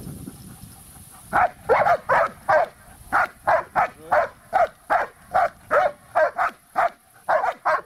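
Large shepherd-type dog barking in a steady run, two to three barks a second, starting about a second and a half in. The barks are aimed at a man holding up a bite sleeve in protection training.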